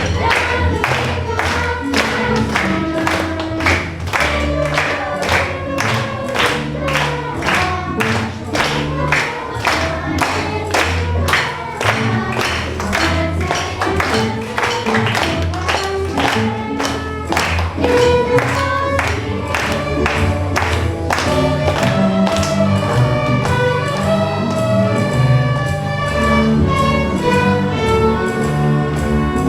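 Student string orchestra playing, with a fast, steady pulse of short accented notes that gives way to longer held notes in the last several seconds.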